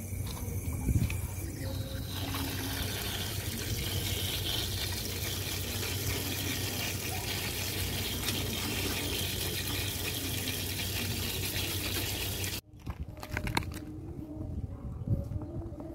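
Low-pressure running tap water rinsing a pleated cone racing air filter, a steady rush of water. It cuts off abruptly about three-quarters of the way in, followed by a few clicks and handling sounds.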